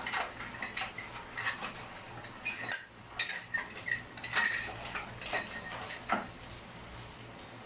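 Small metal parts clinking and clattering against one another in a quick, irregular run of knocks with a brief metallic ring. It stops about six seconds in.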